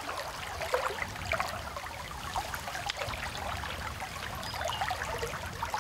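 River water trickling and rippling around a wading angler's legs, with small splashes as his hands lower a caught chub into the current to release it.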